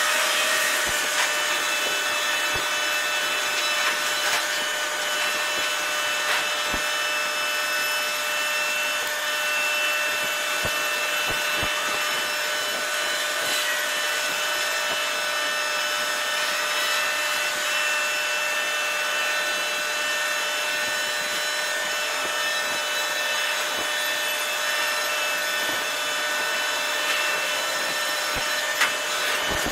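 Container crane machinery running steadily: a constant hiss with several steady whining tones, and a few light knocks, one slightly louder near the end.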